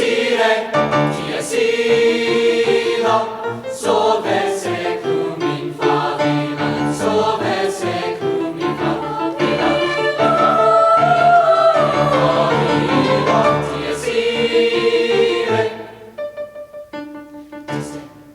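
High school choir singing in concert, many voices together. About two seconds before the end the singing stops and quieter instrumental notes go on.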